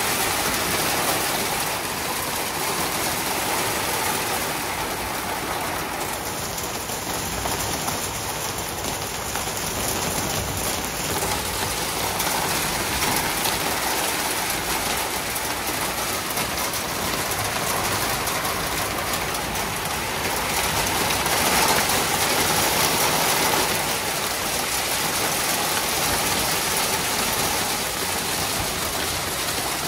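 Heavy rain pouring down and splashing on a concrete patio floor, a steady dense hiss that swells slightly about two-thirds of the way through.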